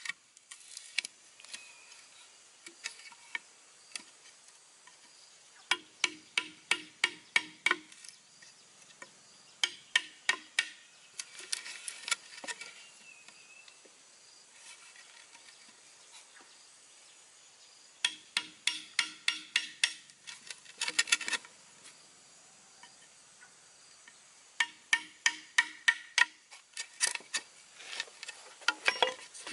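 Wooden mallet tapping a steel chisel to cut a slot into a green bamboo pole: quick, sharp knocks about four or five a second, in five runs of a second or more with pauses between.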